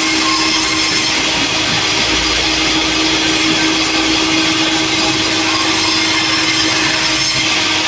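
Sawmill running steadily, its saw making a continuous loud mechanical hum with a steady whine, as when working through a log.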